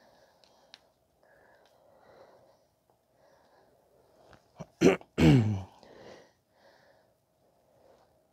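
A man sneezes once about five seconds in: a sharp burst, then a loud voiced exhale falling in pitch. Faint handling noise runs under it.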